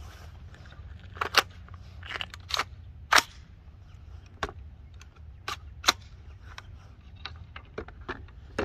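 Ruger SFAR .308 rifle being handled: a series of separate sharp metallic clicks and clacks, about nine in all, the loudest about three seconds in.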